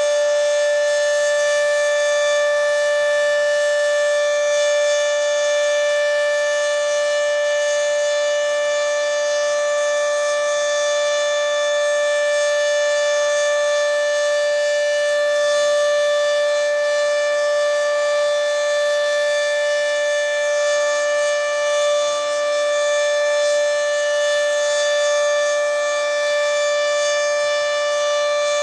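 Federal Signal 2T22A dual-tone tornado siren sounding its Alert signal: a loud, steady multi-tone note held at constant pitch.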